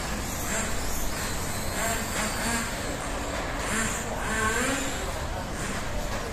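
Electric 1/12-scale RC pan cars running on the track: a high-pitched motor whine that swells and fades as they pass. Voices talk in the background.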